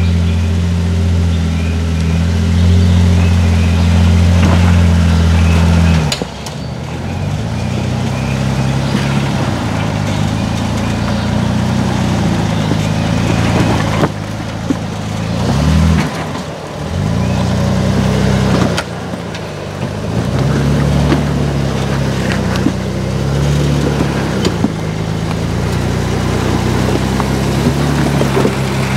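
Jeep Wrangler JK Unlimited Rubicon rock-crawling in low gear. The engine holds steady revs for about six seconds, then rises and falls over and over as the throttle is worked over the rocks. A few sharp knocks come from tyres and underside striking rock.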